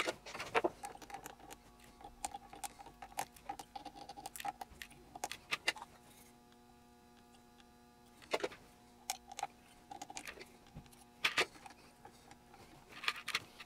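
Irregular sharp metallic clicks and snips from hand tools working a small circuit board in a bench vise: component leads being trimmed, then the board being handled and repositioned. A faint steady electrical hum runs underneath.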